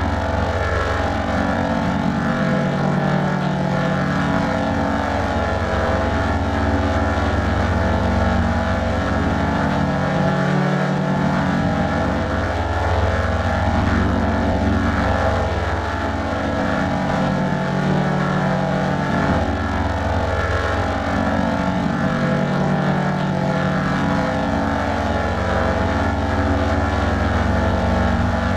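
A music loop in G major at 105 beats per minute: a deep held bass with sustained chord tones above it that change about every two seconds, and no clear percussion.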